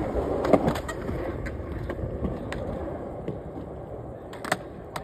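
Skateboard wheels rolling on smooth concrete, the rumble fading away over a few seconds, with a few sharp board clacks about half a second in and a single loud clack near the end.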